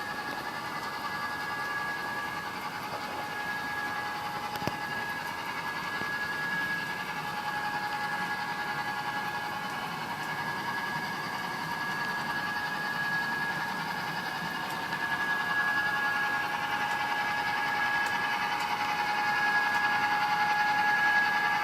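HO-scale model locomotive running on the layout: a steady humming whine with several held tones, growing louder toward the end.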